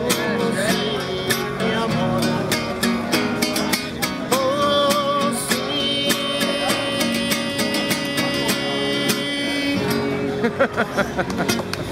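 A man singing while strumming an acoustic guitar. He holds one long sung note for several seconds in the middle, with strums continuing throughout.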